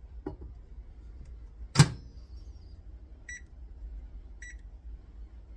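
Microwave oven door handled and shut with one loud clunk, then two short keypad beeps about a second apart as the oven is set.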